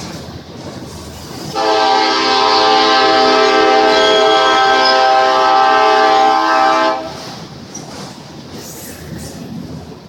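Locomotive air horn blowing one long, steady chord of several notes for about five seconds. It starts about one and a half seconds in and cuts off sharply about seven seconds in, over the rumble and clatter of a passing train.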